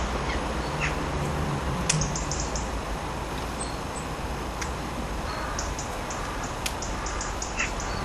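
Jackdaw pecking birdseed off a wooden bird table: a few sharp taps of its beak on the wood over a steady background hiss, with short runs of faint high ticking.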